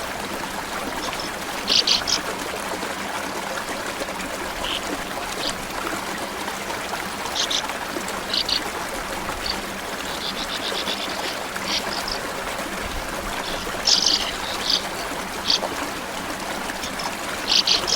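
Stream water running steadily, with short, dry chirps of sand martins breaking in about a dozen times, including a quick rattling trill about ten seconds in.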